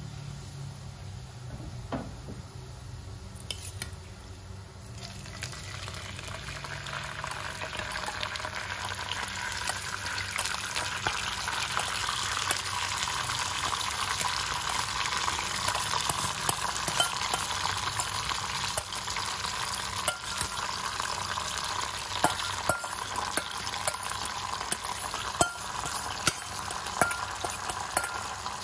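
Minced garlic in hot oil sizzling gently in a wok. From about five seconds in the sizzle grows louder and busier as soaked glutinous rice and seasoning liquid go into the oil, with sharp knocks of utensils against the pan more frequent toward the end.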